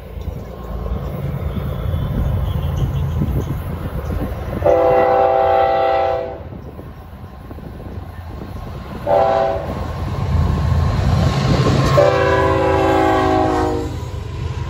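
Florida East Coast GE ES44C4 diesel locomotive approaching a grade crossing, its air horn sounding a long blast, a short blast and another long blast, the crossing warning signal. A low rumble of engine and wheels runs underneath and grows louder as the train nears.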